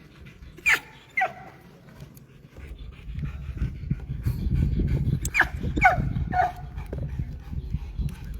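Dog giving short, high whines that fall in pitch: two about a second in and three more about five to six and a half seconds in, with panting between them. A steady low rumbling noise comes in about two and a half seconds in. A commentator hears the dog as quite anxious.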